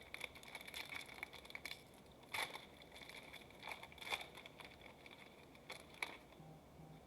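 Trading-card pack wrapper crinkling and tearing as it is opened, with cards being handled. There are a few sharp clicks, about two and a half, four and six seconds in.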